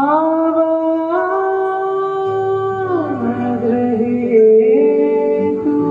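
Singing: one voice holds long notes that step slowly from pitch to pitch over instrumental accompaniment, entering sharply at the start.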